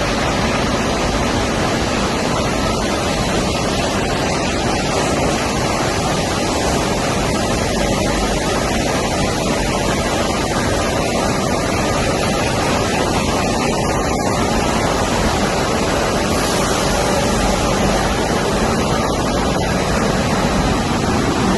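Textile finishing machinery running with a loud, steady rushing noise, typical of a stenter's drying-chamber fans.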